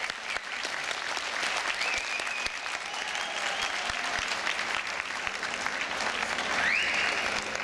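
Arena audience applauding, a dense patter of clapping, with a high rising whoop carrying over it twice, about two seconds in and again near the end.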